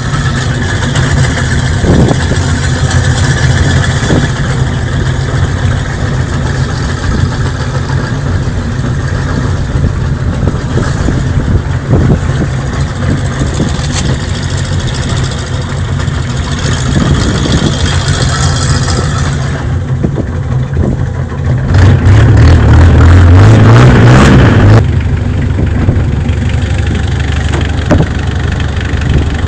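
Exposed inboard engine of a Thai longtail boat firing up and running steadily. About twenty-two seconds in it revs up, louder and rising in pitch, for around three seconds, then drops back to its earlier steady running.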